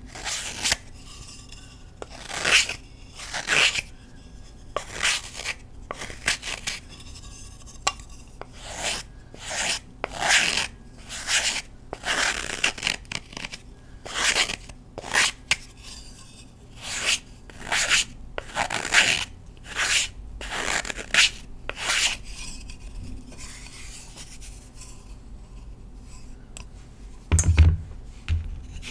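Knife blade scraping across a block of Colift gym chalk, shaving off thin flakes in repeated raspy strokes about one every second. The strokes thin out after about twenty seconds, and a dull thump comes near the end.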